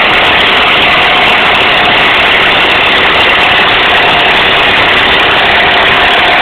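1937 Case CC tractor's four-cylinder engine running steadily under load as it pulls the sled.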